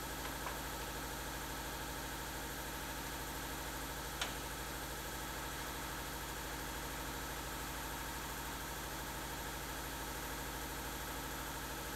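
Steady machine hum made up of several constant tones, with one faint click about four seconds in.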